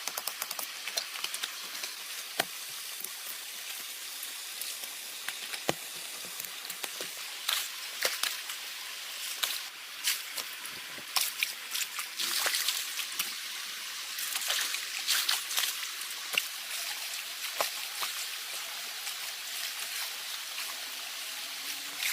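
Forest stream trickling steadily, with scattered sharp clicks and crackles over it.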